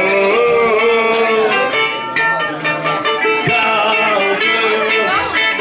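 A ukulele strummed under a man singing a song live, his voice gliding between long notes.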